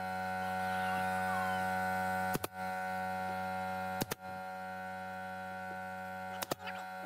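Pneumatic pin nailer firing three times, short sharp pops a second and a half to two and a half seconds apart, the last a quick double. A steady electric hum runs underneath.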